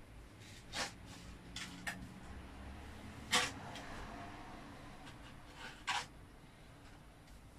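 A few light knocks and scrapes, scattered and irregular, the loudest about three seconds in, over a faint low hum.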